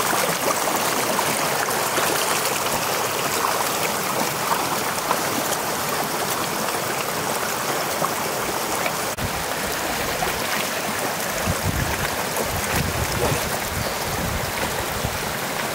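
Shallow mountain stream rushing steadily over rocks, with some low bumps in the second half.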